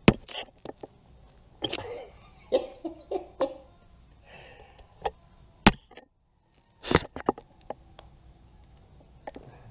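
The loose rubber sole of a worn New Balance sneaker slapping and clicking against a tile floor as the shoe is flexed and stepped. It makes a series of sharp slaps, some in quick runs. The sole is coming away from the upper and flip-flopping.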